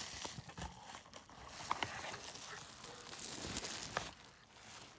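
Plastic bubble-wrap packaging crinkling and rustling with small clicks as a keyboard is handled and pulled from its box, dying down about four seconds in.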